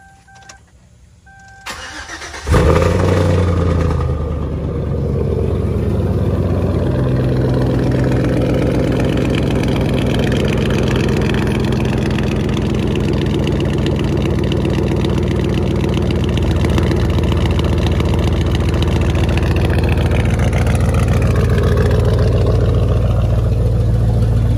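A 2006 Chevrolet Silverado pickup being started: two short chime tones, the starter cranking briefly, then the engine catches about two and a half seconds in with a quick rev flare and settles into a steady, loud idle.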